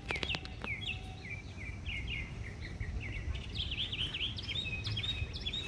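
Small birds chirping: a steady run of short high chirps that come faster and closer together in the second half, over a low outdoor rumble. A few light clicks come just after the start.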